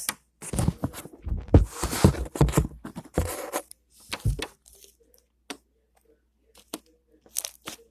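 Slime being squeezed and worked by hand: a run of short, sticky, squishy noises over the first four seconds or so, then mostly quiet with a few small clicks near the end.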